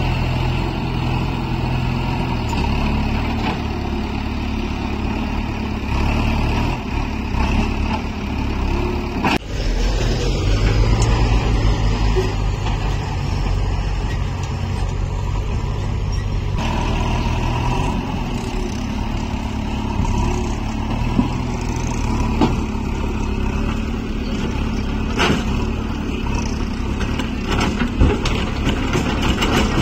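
Diesel engines of a JCB backhoe loader and tipper lorries running steadily, with a few sharp knocks in the second half.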